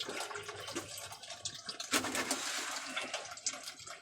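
Old power steering fluid gushing out of a disconnected hose on a Freightliner Cascadia as the steering wheel is turned, pumping it out of the system. The flow gets heavier about two seconds in.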